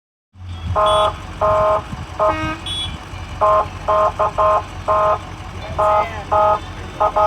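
Semi truck's horn sounded in a rapid series of about a dozen short honks, some in quick pairs and triplets, over a steady low rumble.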